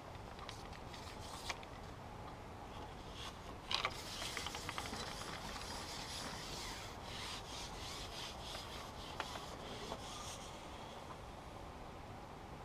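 Carbon fishing pole sections rubbing and sliding through the angler's hands and against his clothing as the pole is pushed out. A few light clicks come first, then a sharper knock about four seconds in, followed by several seconds of rough rubbing.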